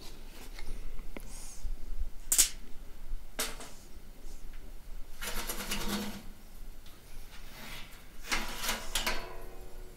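Sheet-metal side cover of a UPS power module being worked loose and lifted off: two sharp clicks or knocks, then two scraping, rattling stretches, the second leaving a brief metallic ring.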